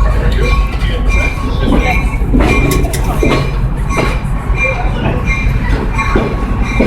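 Passenger train rolling along the track: a steady low rumble of the cars, with sharp knocks from the wheels and rails a few times and short high wheel squeals that keep coming and going.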